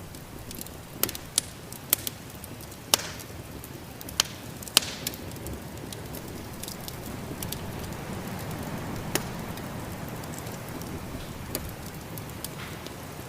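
Wood fire crackling, with a run of sharp pops in the first five seconds and sparser ones after, over a steady rushing of snowstorm wind.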